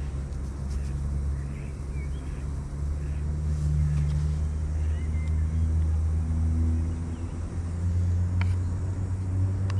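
Low, steady engine drone with a few slowly shifting tones, and a couple of light clicks from a wooden spoon stirring in a metal pot near the end.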